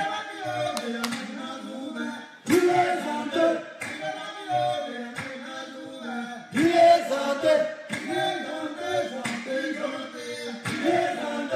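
A group of men singing a cappella, a soldiers' commando chant or war song, played back from a recording. The singing surges louder about two and a half and six and a half seconds in.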